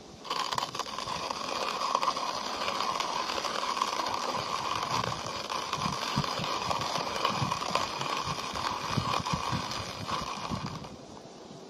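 Hand-cranked coffee grinder grinding coffee beans: a steady gritty crunching as the crank turns, starting just after the beginning and stopping near the end.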